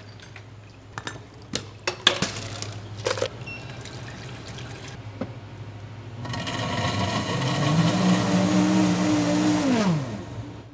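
Metal scoops clicking and knocking against frozen fruit and tubs, then a countertop blender running loudly for about four seconds, its motor falling in pitch as it spins down.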